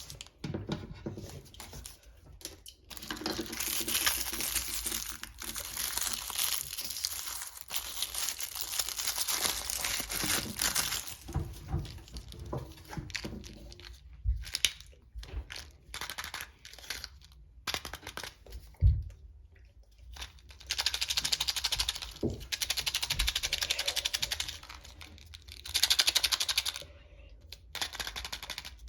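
Wrapping on a Mini Brands surprise ball crinkling and tearing as it is unwrapped by hand, in long rustling stretches with small clicks and taps of plastic in between.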